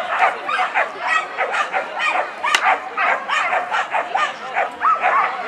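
Several dogs barking and yipping excitedly over one another, without a break.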